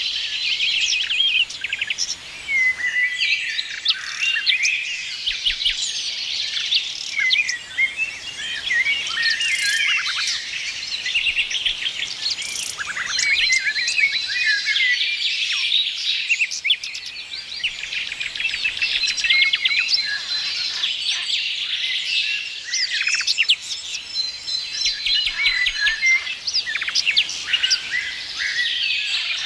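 Several songbirds singing and chirping at once, a dense, continuous chorus of quick chirps, trills and short whistles, with a few held high notes.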